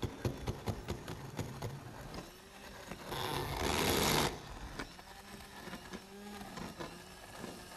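Hand-held immersion blender running in a stainless steel saucepan, puréeing cream of celery soup. It grows louder for just over a second about three seconds in, then settles back to a steadier hum.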